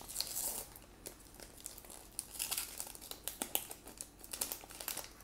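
Wrapper of a 2018 Topps Fire baseball card pack crinkling and rustling as the pack is handled and pulled out of the hobby box, in irregular bursts of crackle.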